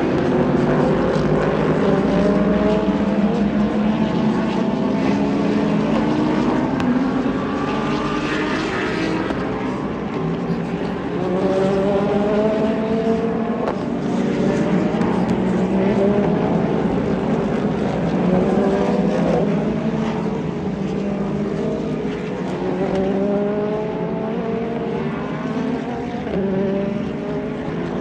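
Race car engines accelerating on a track, several at once, each rising in pitch and dropping back as it shifts up through the gears, overlapping as the cars go by.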